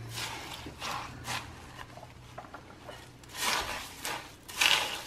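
Spatula stirring Rice Krispies cereal, peanuts and mini marshmallows into melted almond bark in a glass bowl: crunchy rustling stirs in a few bursts, the loudest two near the end.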